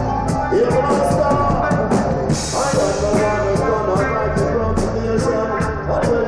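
Live reggae band playing, with drums, a steady run of hi-hat ticks and sustained instrument tones. A cymbal crash comes about two seconds in.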